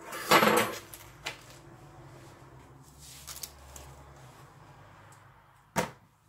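Kitchen handling noises while working a baked sponge sheet in its tin: a loud rustling scrape near the start, a couple of small clicks, and a sharp knock near the end.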